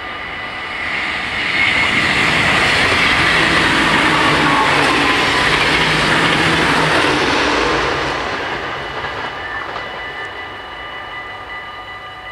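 NS ICMm electric intercity train passing the level crossing at speed: a loud rush of wheels on rail that swells about a second in, holds until about eight seconds and then fades. Under it the crossing bells ring steadily throughout.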